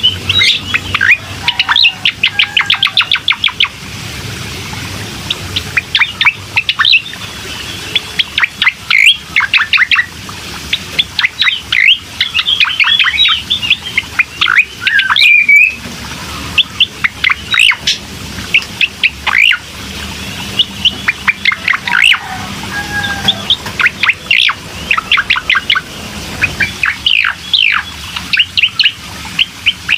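Cucak koreng songbird singing loudly in fast runs of sharp, high chirps and trills, the phrases broken by short pauses, with a longer slurred whistle about halfway through. It is a recorded song of the kind played as a lure to start a quiet caged bird singing.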